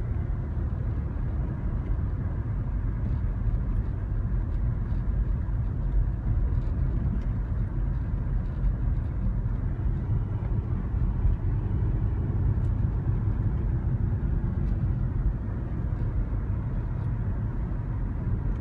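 Car driving at steady speed, heard from inside: a steady low road and engine rumble with a few faint ticks.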